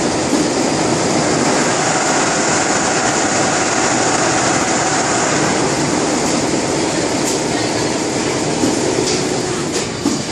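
Richpeace six-head automatic bridge-type sewing machine running, its heads stitching at speed in a steady mechanical rattle and hum, with a few sharper clicks near the end.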